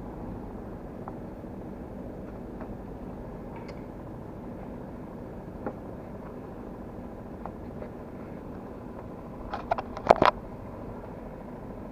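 Steady low mechanical hum, with light clicks of a leather wallet being handled and closed. A quick run of sharp clacks about ten seconds in is the loudest sound.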